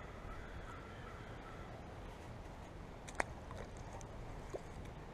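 Faint, steady outdoor background noise with a single sharp click about three seconds in and a softer tick a little later.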